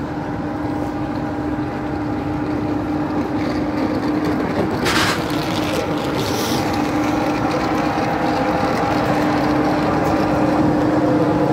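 TGV power car standing at the platform, its cooling blowers and auxiliary equipment running with a steady drone and a few held tones, growing slowly louder. A short hiss about five seconds in.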